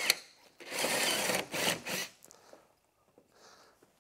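Cordless drill drilling out a mounting hole in a snowmobile's tunnel: a sharp click right at the start, then a burst of about a second and two short bursts of drilling.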